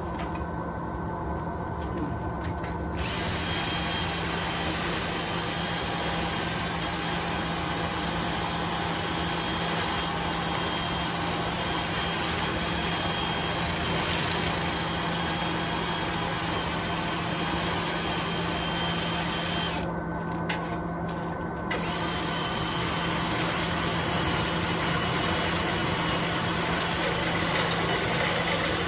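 A power tool's motor running steadily with a constant hum, used in cleaning out a clogged dryer vent duct.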